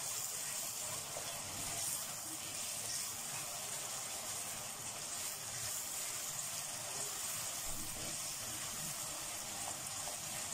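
Chopped onion sizzling steadily in hot oil in a steel pot while it is stirred with a wooden spoon: the sauté stage of the onion.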